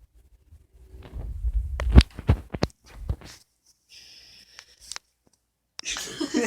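Rumbling handling noise and a cluster of sharp knocks and thumps about two to three seconds in, then a brief hiss. Near the end, after a sudden dropout, a loud noisy burst with a voice in it.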